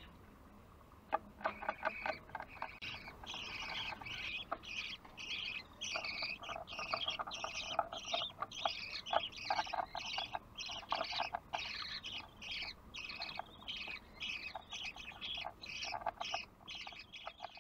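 Budgerigars chirping: after about a second of quiet, a long, fast run of short, high chirps, two to three a second, with softer clicking notes beneath.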